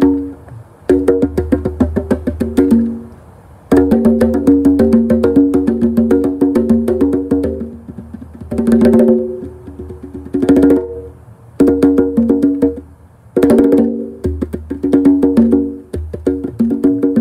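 A pair of conga drums played with bare hands in fast runs of open tones and slaps, with several brief pauses between the runs.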